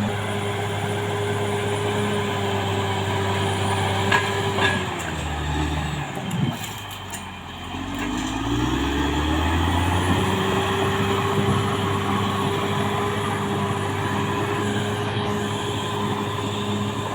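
Caterpillar D6R XL bulldozer's diesel engine running steadily. Its revs sag from about five seconds in and climb back by about ten seconds, with two sharp knocks just before the dip.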